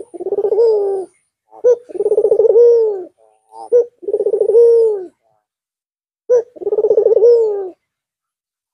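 An albino (white) ringneck dove cooing four times. Each call is a short sharp note followed by a long rolling, pulsing coo that lifts and then drops in pitch at the end.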